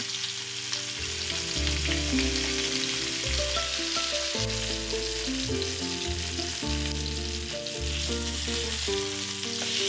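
Lamb chops sizzling steadily as they sear in hot rendered lamb fat in a stainless steel pan. Background music with held low notes plays underneath.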